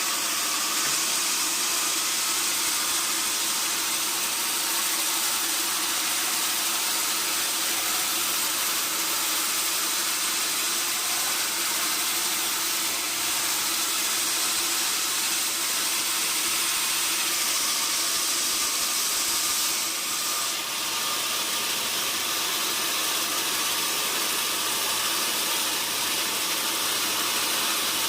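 Sawmill machinery running steadily, a constant hissing noise with a faint hum beneath it and a brief dip about twenty seconds in.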